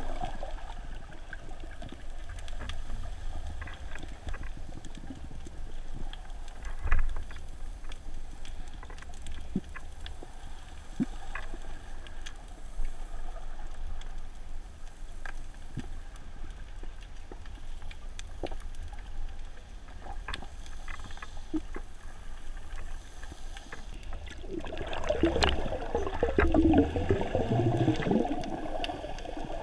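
Underwater sound through a GoPro's waterproof housing as a diver swims: a steady low rush of water with scattered faint clicks, and a louder stretch of gurgling water noise near the end.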